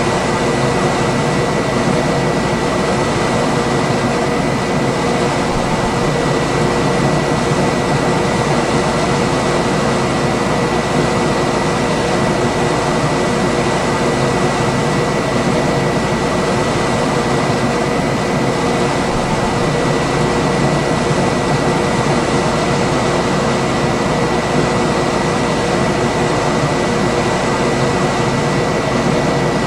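Room air conditioner running steadily: an even rushing of fan noise with a faint steady hum and whine running through it.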